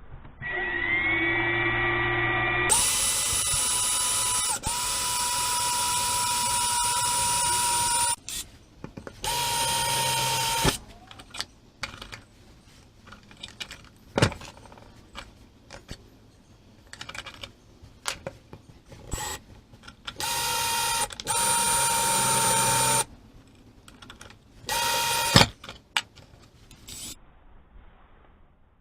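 Electric drill boring the marked holes for the rod-holder bolts, with a wood block set behind to drill into. It runs in several bursts of steady high motor whine, the first spinning up with a rising pitch and the longest lasting about five seconds, with clicks and knocks between bursts.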